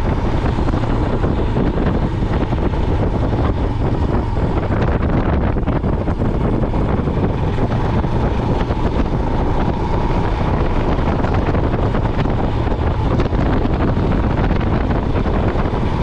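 Royal Enfield Himalayan single-cylinder motorcycle running under way, mixed with steady wind rush on the microphone from riding.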